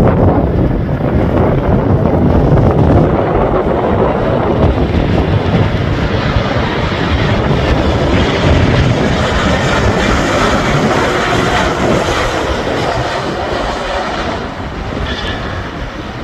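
Jet airliner passing low on approach, a loud continuous jet rumble that shifts higher in pitch midway and eases off near the end, with strong wind buffeting the microphone.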